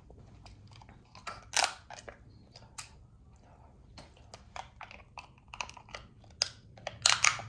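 Eating Dungeness crab: irregular sharp cracks and crunches of shell with chewing between, loudest about one and a half seconds in and again in a cluster near the end.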